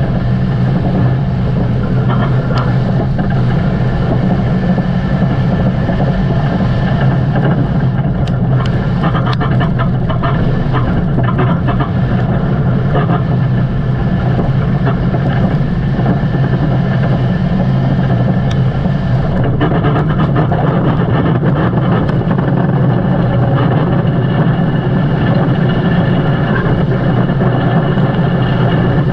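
Motor vehicle engine running steadily and loudly, with a constant low hum.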